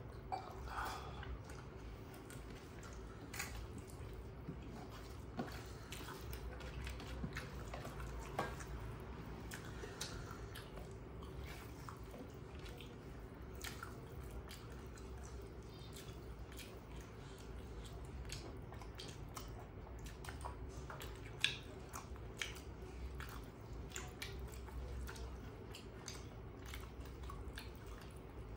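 Close-miked eating: rice mixed with curry being squished by hand on steel plates, with wet chewing and many small clicks and smacks. A steady low hum runs underneath, and there is one sharper click a little past two-thirds of the way through.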